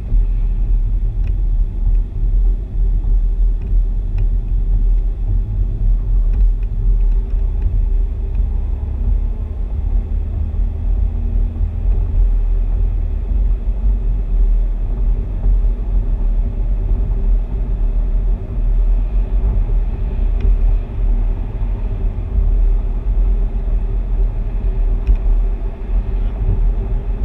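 A car driving along at a steady pace, heard from inside the cabin: a steady low rumble of engine and tyres on the road.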